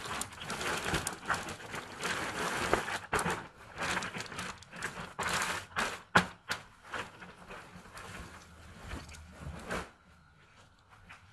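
Clear plastic packaging bag crinkling and rustling as hands handle it and pull out a folded shirt, with many sharp crackles. It dies away to faint near the end.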